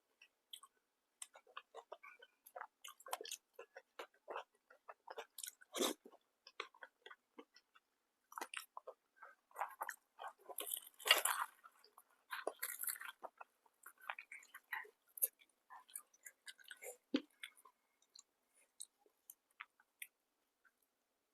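A person chewing food close to the microphone: soft, wet mouth sounds and small clicks throughout, with louder bites in the middle.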